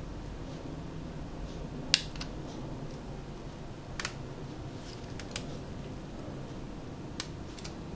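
Small sharp plastic clicks, about five spread over several seconds with the loudest about two seconds in, as the ZIF cable connector latches inside a Sony DSC-H55 camera are flipped open, over a low steady hum.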